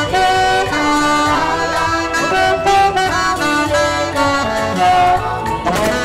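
Band music with a saxophone carrying the melody in held notes that slide from pitch to pitch, over a busy accompaniment.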